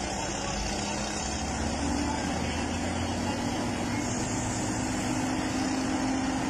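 Excavator's heavy diesel engine running steadily under load while it lifts a large marble block onto a lorry, a constant low hum.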